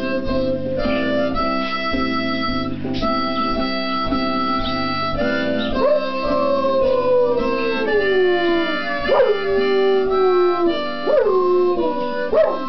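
Dog howling along to blues harmonica with a backing band: one long howl slides slowly down in pitch through the middle, then shorter howls rise and drop near the end.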